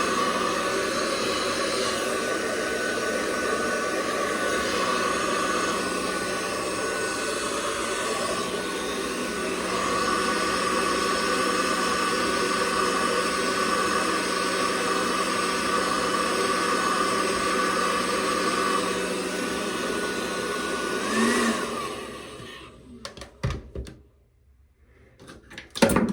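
Hand-held hair dryer running steadily, then switched off a little over twenty seconds in; a few light knocks follow.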